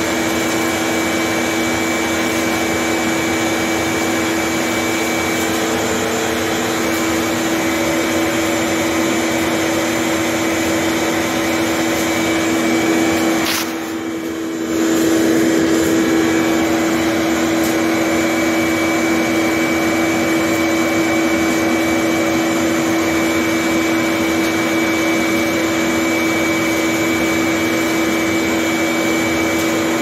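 Vacuum motor running steadily with a constant hum and whine. About fourteen seconds in there is a click, and the sound drops for about a second before coming back to full strength.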